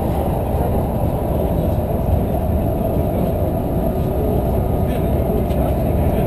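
Interior of a moving city bus: steady low rumble of engine and tyre noise while cruising along the road.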